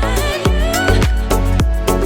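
Background music with a steady dance beat and a heavy bass line, in an Afrobeat style.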